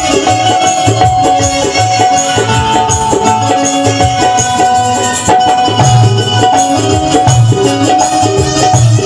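Instrumental interlude of live Bhojpuri folk stage music: a steady hand-drum beat under a sustained melody instrument, with jingling percussion, and no singing.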